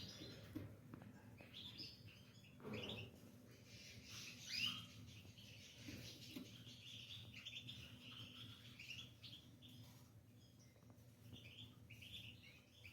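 Canary singing faintly: scattered chirps and then a sustained trill a few seconds long.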